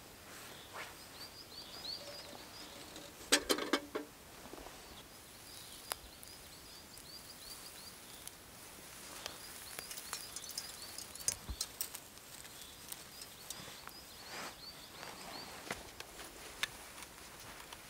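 Forest ambience: a small bird calls over and over in short high chirps, while clothing and gear rustle and click. The loudest rustle comes a little over three seconds in.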